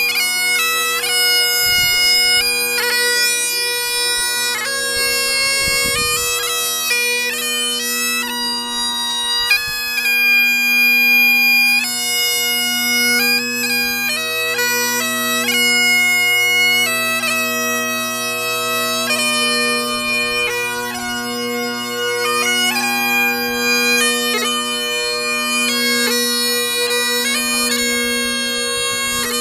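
Great Highland bagpipe played solo: steady drones sounding under a chanter melody of quick, ornamented notes that runs on without a break.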